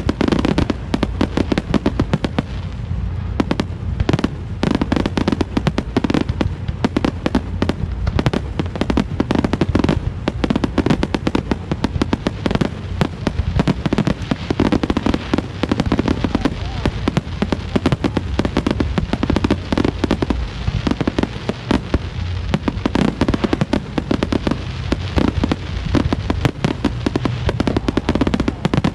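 Fireworks display at full pace: a rapid, unbroken run of firework bangs and crackles over a deep rumble.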